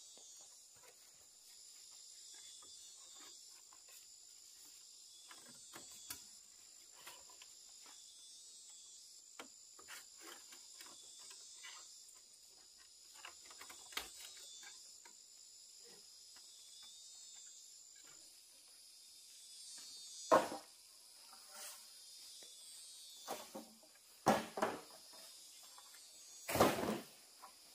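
Steady high-pitched chorus of insects, crickets or similar, with scattered light clicks and taps. Several louder knocks stand out in the last third.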